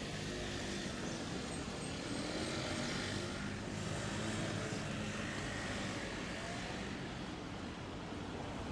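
Outdoor street ambience: a steady rumble of distant traffic.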